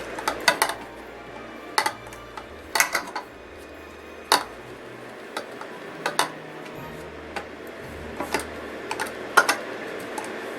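Light irregular clicks and taps of a roller and tools knocking on the work surface as soft Model Magic clay is rolled out, about a dozen scattered through, over quiet background music.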